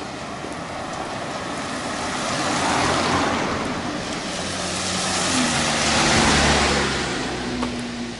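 Two road vehicles passing close by one after the other, their tyre and engine noise swelling and fading, the first loudest about three seconds in and the second about six seconds in, the second carrying a low engine hum.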